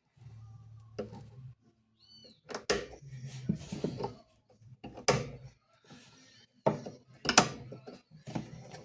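Small pliers working a thin retaining clip off a washing machine's spin mechanism: scattered metal clicks and knocks, with a brief squeak about two seconds in.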